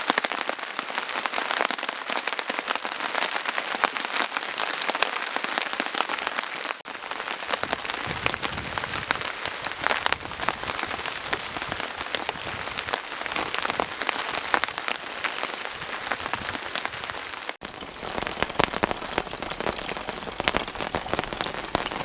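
Heavy rain falling steadily: a dense hiss full of close, quick drop taps. It dips briefly about seven seconds in, after which a deeper low rumble runs under the rain, and dips again near seventeen seconds.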